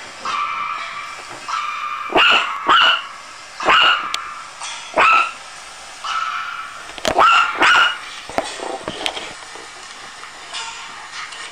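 Chihuahua puppy yapping: about seven sharp, high-pitched barks in short bouts, including a quick pair and a quick triple.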